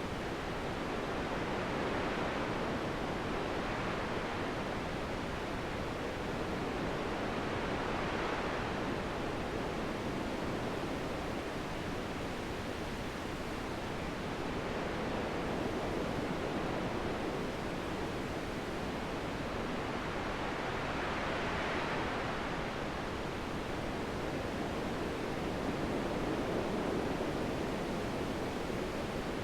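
Steady wind noise, rising and falling in slow, smooth gusts about every six seconds, each gust briefly higher-pitched as it swells.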